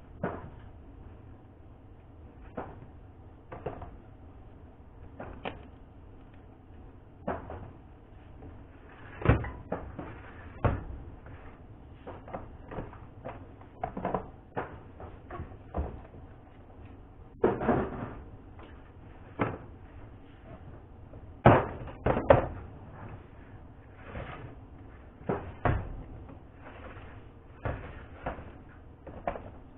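Irregular knocks and clatters of things being handled and set down on a hard work surface, one every second or two. The loudest comes about nine seconds in, followed by a cluster around seventeen seconds and a sharp pair near twenty-two seconds.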